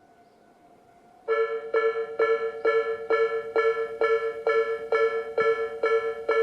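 Japanese railway level-crossing electronic alarm, Tobu Railway's 'sound B' bell, starts about a second in. It rings a pitched, bell-like strike a little over twice a second, the warning that a train is approaching the crossing.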